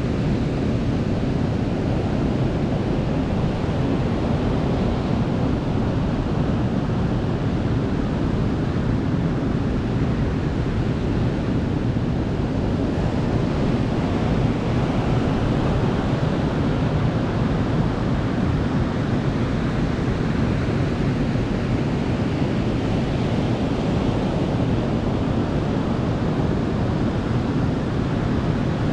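Sea surf breaking and washing onto a beach: a continuous deep rush of waves, with the higher hiss swelling and fading a couple of times.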